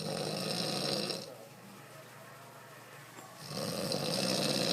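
Snoring: one long snore at the start, then a second beginning about three and a half seconds in, with a quieter pause between.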